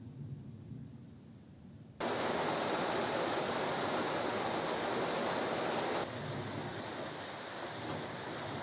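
The low rumble of thunder fades away, then about two seconds in a steady hiss of heavy rain starts abruptly. The rain hiss drops a little about six seconds in.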